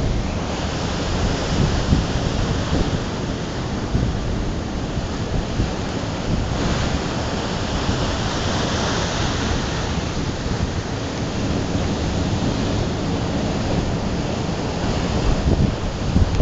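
Heavy storm surf breaking and washing up the beach in a continuous rush, swelling into louder hiss as each wave breaks. Wind buffets the microphone with low rumbles.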